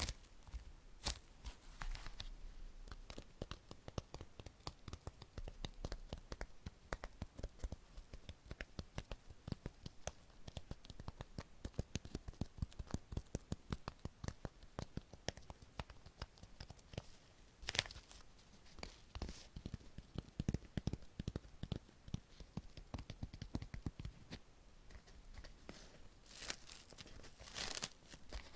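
Close-miked crinkling and tearing of the rice cakes' wrapping: dense crackle throughout with a few louder sharp rips.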